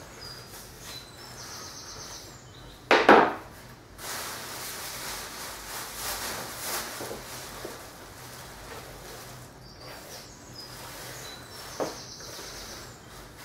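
Hand brush sweeping spilled white powder and broken pieces across a wooden floor into a plastic dustpan, with a plastic bin bag rustling. A loud clatter about three seconds in, and a small knock near the end.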